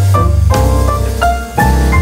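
Instrumental background music: sustained notes that change every half second or so over a steady low bass.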